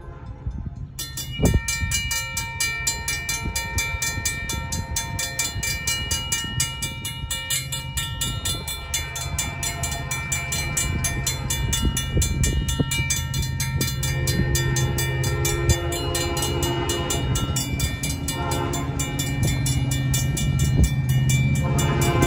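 Railroad crossing bells start ringing rapidly about a second in and keep ringing. They include a Safetran hybrid bell and Safetran mechanical bells from neighbouring crossings. Under them the diesel rumble of an approaching CN freight locomotive grows steadily louder, and its horn sounds in long blasts over the second half, loudest near the end.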